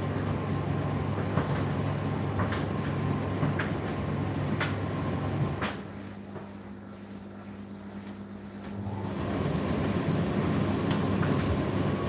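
Indesit IDC8T3 condenser tumble dryer running with a steady hum and occasional light clicks. About halfway through, the main drum noise drops away for roughly three seconds, leaving a quieter steady hum, then picks up again.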